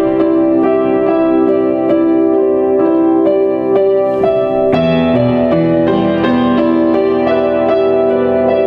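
Solo piano playing a slow passage of sustained chords, its notes struck again and again, moving to a new chord about halfway through.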